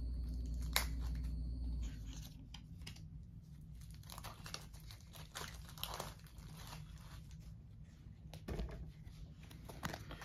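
Wrapping crinkling and tearing, with irregular rustles and a few light taps, as the new deck of game cards is unwrapped and handled. A low steady hum cuts off about two seconds in.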